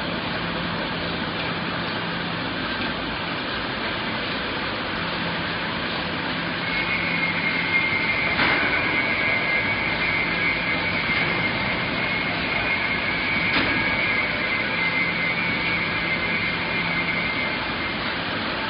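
Bag palletizing line running: robots and conveyors make a steady mechanical noise with an on-and-off low hum. A high whine comes in about seven seconds in and stops near the end, with two sharp knocks along the way.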